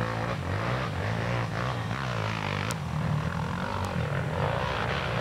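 Off-road motorcycle engines revving up and down, more than one at once, their pitch rising and falling as they climb.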